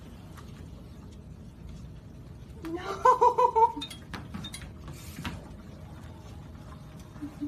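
Treadmill running with a low steady hum and scattered light clicks. About three seconds in comes the loudest sound: a quick run of four short high-pitched vocal notes.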